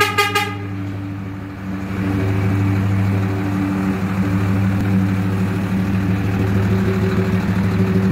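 Ford Cargo 2520 truck's diesel engine idling steadily through its aftermarket exhaust, a deep even rumble. A short horn-like toot sounds at the very start.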